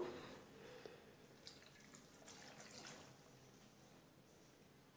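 Faint pouring and dripping of milk from a steel bowl onto watermelon chunks in a steel mixer-grinder jar, dying away after about three seconds.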